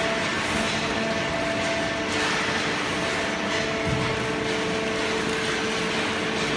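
Hydraulic waste-paper baling press running: a steady machine hum carrying several held tones over a wash of mechanical noise.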